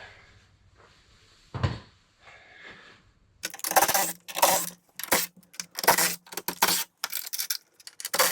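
A single thump about a second and a half in, then repeated bursts of metallic rattling and clinking from a wrench working the bolts that hold a truck's battery tray.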